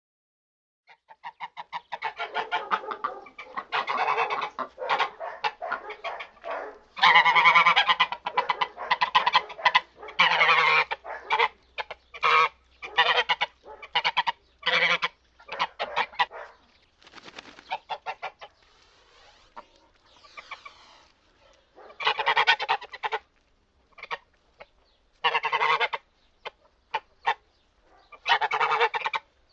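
Domestic geese honking, many calls overlapping in dense runs, thinning out past the middle, then coming in separate bursts of honks near the end.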